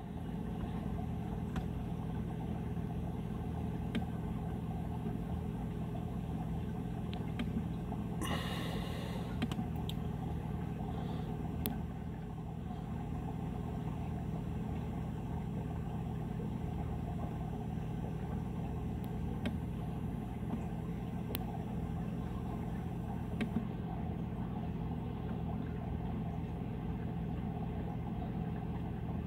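A steady low mechanical hum, with a few faint clicks and a short rustle about eight seconds in.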